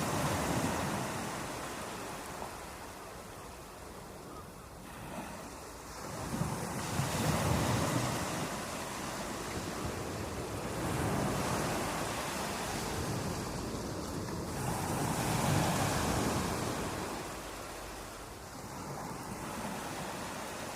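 Sea waves breaking and washing in, a steady surf noise that swells and ebbs every few seconds.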